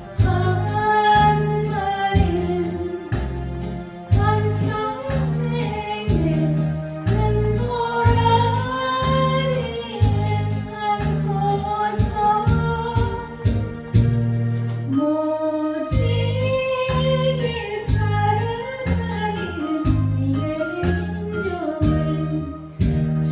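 A woman singing a slow Korean trot song over a backing track with a steady, repeating bass line.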